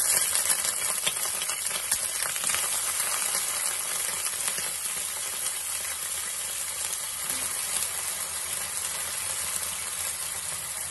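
Cubed raw potatoes sizzling in hot mustard oil in a kadhai, loud at first as they hit the oil, then settling into a steady sizzle.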